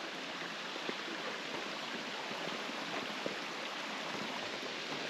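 Creek water running over rocks: a steady, even rushing.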